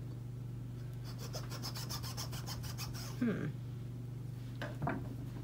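A kitchen knife sawing back and forth through a raw pie pumpkin: quick scraping strokes, about eight a second, for about two seconds, then a couple of knocks of the knife against the cutting surface near the end.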